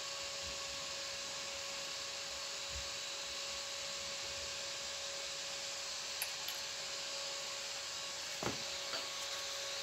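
Homemade transistor-driven Tesla coil running: a steady hiss with a thin, steady hum tone, its discharge lighting a gas-filled bulb held nearby. A sharp click about six seconds in and a short knock about eight and a half seconds in.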